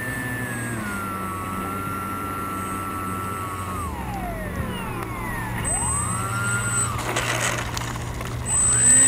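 Electric brushless motor and propeller of a Skywalker Sirius FPV plane whining as the throttle is eased back for landing: the pitch steps down, drops away as the throttle is cut about four seconds in, and comes back briefly near six seconds. A short rough rushing noise comes about seven seconds in around touchdown on concrete, and the motor spools up loudly again near the end.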